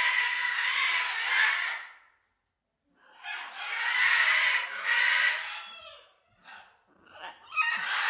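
Macaws screeching: two long, harsh squawks of about two seconds each with a short silence between, then a few brief calls and another screech starting near the end.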